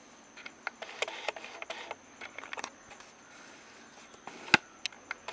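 Plastic clicks and rattles as the dishwasher's detergent and rinse-aid dispenser is handled, with one sharp, louder click about four and a half seconds in.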